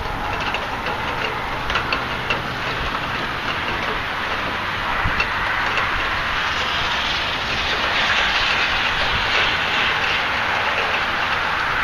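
Heavy rain and wind of a thunderstorm: a steady rushing noise that grows a little louder about halfway through.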